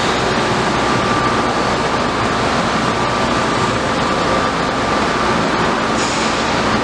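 Steady, loud rushing of ventilation air with a thin, steady whine running through it.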